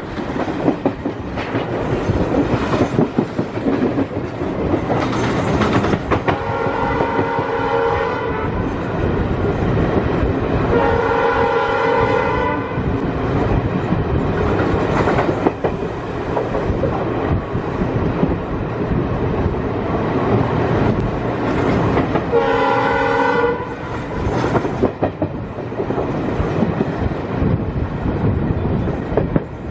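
Passenger coach running at speed, its wheels beating a steady clickety-clack over the rail joints under a continuous rumble. The WDM3D ALCO diesel locomotive's horn sounds three times: two blasts of about one and a half to two seconds, a few seconds apart, then a shorter third about ten seconds later.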